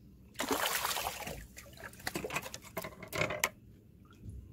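Water splashing as a hooked fish thrashes at the surface while it is drawn to the landing net: one long splash of about a second, then several shorter splashes and knocks over the next two seconds.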